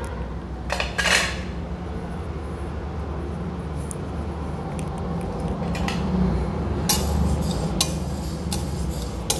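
Steel spatula scraping and clinking against a steel kadhai as cumin, coriander and fenugreek seeds are stirred while dry-roasting. The strokes come now and then, a cluster about a second in and several more in the second half, over a steady low hum.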